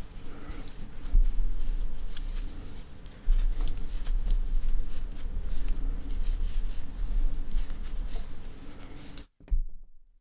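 Crochet hook and yarn being worked by hand close to the microphone: soft rustling of yarn with light clicks and low handling rumble. The sound cuts out to silence for about a second near the end.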